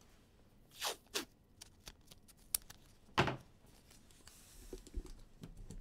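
Short rustles and scrapes of something being handled close to the microphone: two about a second in, a stronger one about three seconds in, and a scatter of small ticks.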